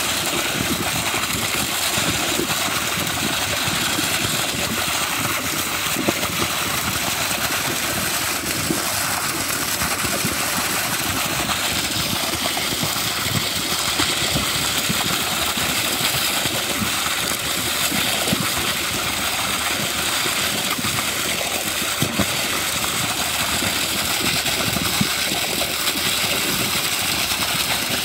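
Concrete pump running steadily while wet concrete pours from the pump hose and splatters into a foundation trench.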